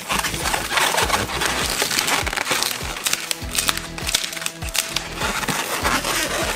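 Latex 260 modelling balloon squeaking and creaking as it is rubbed and twisted into bubbles and a pinch twist, with a run of longer, more tonal squeals in the middle.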